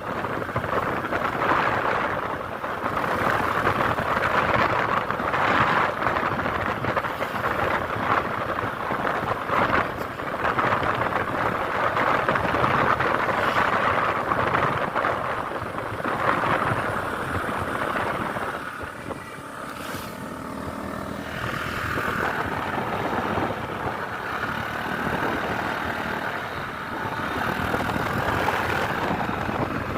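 Steady road and engine noise of a moving vehicle, easing briefly about two-thirds of the way through.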